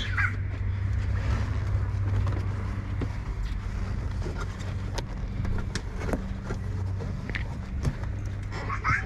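Steady low hum with scattered light clicks and rustles as the floor liner is handled and pressed into place.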